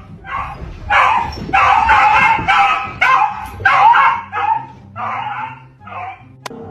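A dog barking and yelping about ten times in a row, each call drawn out to about half a second.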